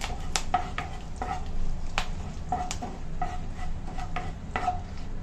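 A plastic spatula stirring red masala and curry leaves frying in oil in a nonstick pan, with a light sizzle. The spatula knocks against the pan about ten times at an irregular pace, each knock giving a short ring.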